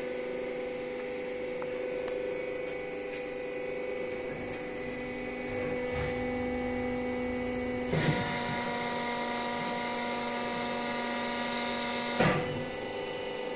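Hydraulic pump of an 80-tonne Durma HAP 2580 CNC press brake running with a steady hum; its note changes as the ram comes down for a bend. A clunk about eight seconds in starts a roughly four-second hold at pressure with a higher, busier whine. A second clunk ends the hold and the hum returns to its earlier note.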